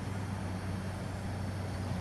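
A steady low mechanical hum over a faint even hiss.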